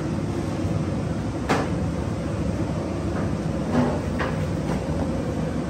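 Steady low rumbling kitchen background noise, with a few short sharp knocks: one about a second and a half in and a small cluster around four seconds in.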